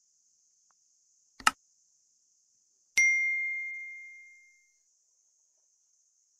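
Subscribe-button sound effect: a short sharp click, then about a second and a half later a single bright bell ding that rings out and fades over about a second and a half.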